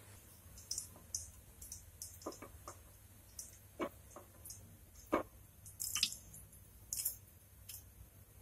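Cooking oil heating in a wok, giving off small irregular crackles and pops. About a dozen sharp ticks come at uneven intervals, the loudest a little past halfway.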